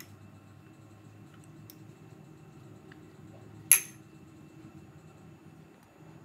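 A metal spoon clinks once, sharply, against a ceramic bowl of marinating beef about three and a half seconds in, with a brief ring after it.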